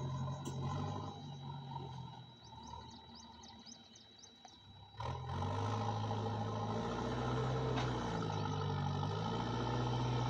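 Diesel engine of an earthmoving machine running with a steady low hum. It dies down for a few seconds, when faint high chirps can be heard, then comes back loud about five seconds in and briefly rises in pitch around eight seconds in.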